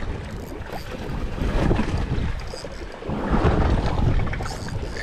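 Wind buffeting the microphone on a boat at sea, with the rush of water around the hull; the noise swells about one and a half seconds in and again after three seconds.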